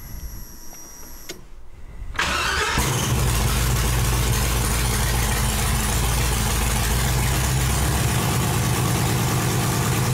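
LS V8 in a Chevy S-10 with open zoomie headers, heard from inside the cab: the starter cranks, then about two seconds in the engine catches and settles into a loud, steady idle. It is running on seven cylinders because one spark plug wire was left off.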